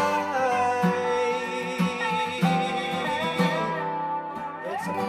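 Guitar-led rock music played by a full band, in a passage between sung lines.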